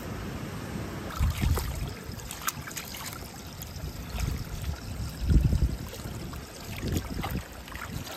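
Water splashing and sloshing in several irregular surges as a skinned lamb carcass is dunked and rinsed by hand in a stone trough, over a steady trickle of water.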